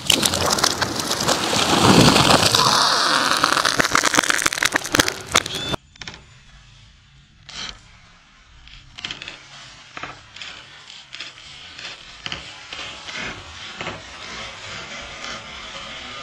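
Large dead ash tree coming down: wood cracking and splintering, then the heavy crash of the trunk and limbs hitting the ground about two seconds in. The sound cuts off abruptly about six seconds in, leaving faint scattered ticks with music coming in near the end.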